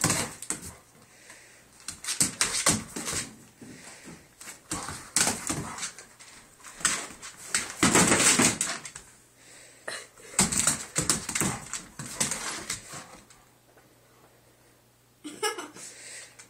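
A dog's paws and claws scrabbling and thumping on the floor as it darts after a laser dot, in irregular bursts of rapid clicks and knocks with a quieter lull a little before the end.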